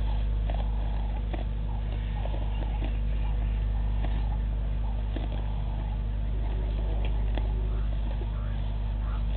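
Outdoor bush ambience dominated by a steady low hum, with scattered faint clicks and short chirps over it.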